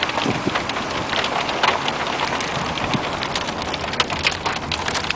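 Hail and rain pelting down, a dense patter of sharp ticks as the hailstones strike. The ticking grows thicker about three seconds in, with hail hitting the car's roof and windows.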